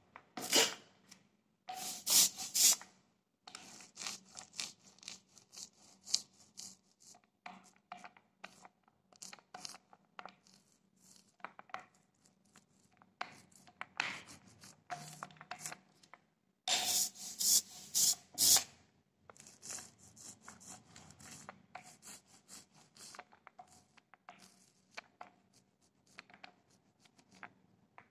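A small hand roller being rolled back and forth over a bed of plastic tube beads, inking their tops with white ink: an uneven series of short rubbing strokes, loudest in brief clusters near the start and about two-thirds of the way through.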